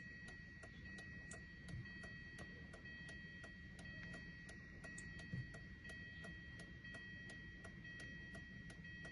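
Steady, even ticking, about two ticks a second, with a faint steady high tone behind it, heard in the car while a smart key is being programmed to the 2011 Hyundai Sonata.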